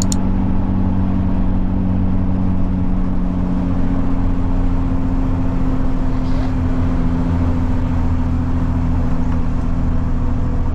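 Diesel truck engine with a straight-through exhaust running steadily under way, heard from inside the cab.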